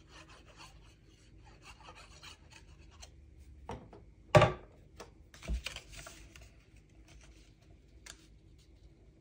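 A liquid glue bottle's tip rubbing and scratching across a strip of paper, followed by paper rustling and rubbing as the piece is handled and pressed down onto cardstock. A sharp knock about four seconds in is the loudest sound, with a smaller knock a second later.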